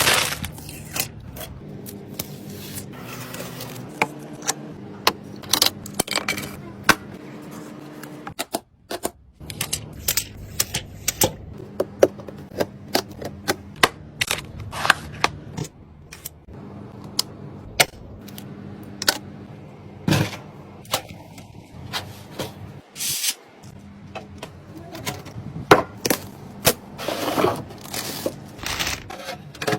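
Sharp clicks and clatters of computer parts being handled and fitted together, dozens of them at uneven intervals, over soft background music whose low notes change about every second.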